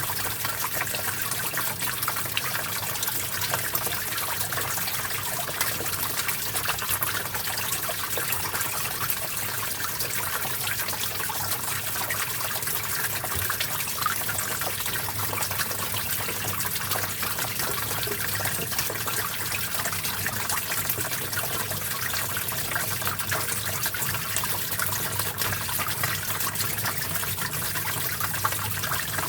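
Small stream of water trickling and splashing steadily over rocks, with continuous fine babbling.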